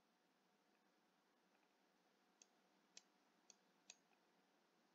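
Near silence with four faint computer mouse clicks in the second half, as a map is dragged and panned on screen.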